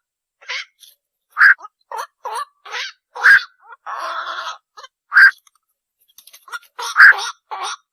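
Lure recording of black-crowned night herons (koak) calling: short croaking calls repeat irregularly, a few a second, with one longer drawn-out call about four seconds in.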